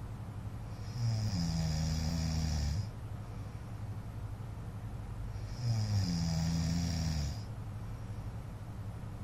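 A man snoring in his sleep: two long snores about five seconds apart, each with a low droning tone, over a steady low hum.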